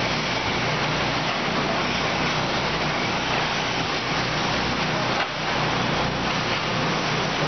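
Steady, even din of an RC race meeting as electric 1/10-scale short-course trucks run on a dirt track, with no single sound standing out; the level dips briefly about five seconds in.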